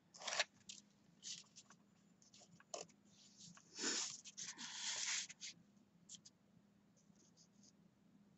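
Craft paper being handled: faint short scrapes and rustles, with a longer rustle about four seconds in.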